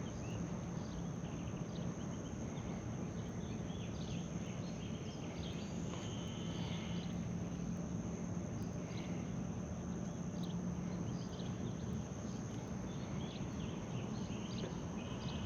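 Outdoor ambience: a steady high-pitched insect drone, with short bird chirps now and then and a faint low hum underneath.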